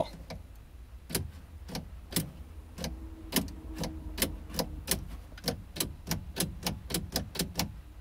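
A long run of sharp clicks at the Toyota Previa's ignition as the key is turned to start. The clicks are sparse at first and quicken to about four a second midway, and the starter never cranks: the faulty alarm box has cut the starter circuit.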